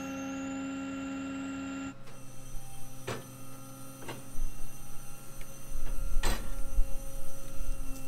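Tow truck winch running with a steady mechanical hum while pulling a stuck pickup truck up over a rock, with a few sharp clicks in the second half.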